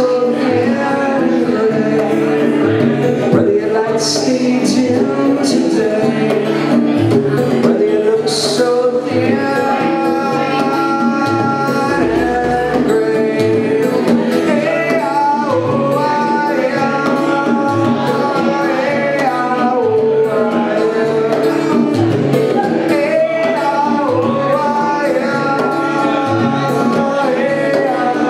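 Live duo playing a reggae-rock song: guitar and bongos, with a man singing.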